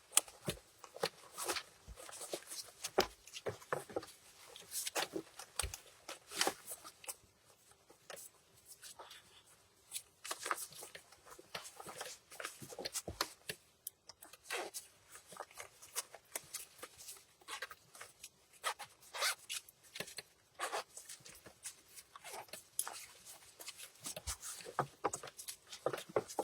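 A person eating a meal: irregular short clicks and scrapes, quiet between them.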